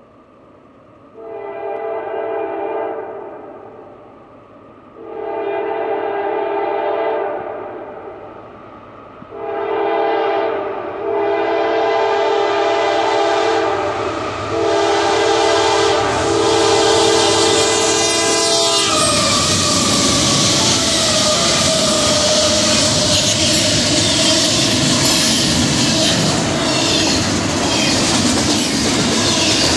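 Multi-chime horn of a Union Pacific GE AC4400CW diesel locomotive sounding the long-long-short-long grade-crossing warning as the train closes in, each blast louder than the last. About 19 seconds in the horn cuts off and the loud rush of the locomotive and intermodal cars passing at speed takes over, with wheels clicking on the rails.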